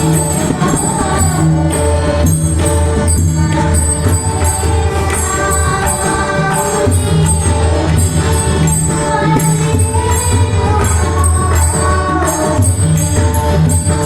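Varkari bhajan: singing with a group of voices, over a steady rhythm on pakhwaj and tabla and repeated jingling strikes of small hand cymbals.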